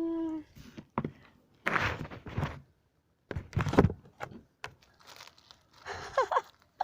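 Packaging of a YouTube Silver Play Button being pulled open: rustling, crinkling and tearing with a few thunks, loudest about two and four seconds in. There are brief vocal exclamations at the start and about six seconds in.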